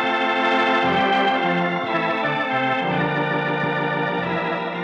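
Organ music bridge between radio-drama scenes: held organ chords over a bass line that changes note a few times. It starts loud and begins to fade near the end.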